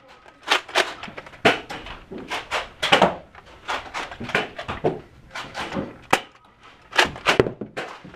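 Many sharp clacks and knocks in quick, irregular succession, roughly two a second, with a few louder ones about three seconds in and near the end.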